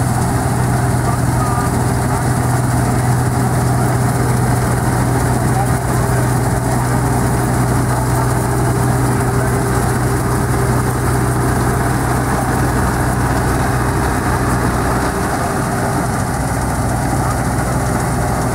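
John Deere 330 combine harvester running steadily while cutting oats: a constant engine hum with the clatter of the reel and threshing works under load.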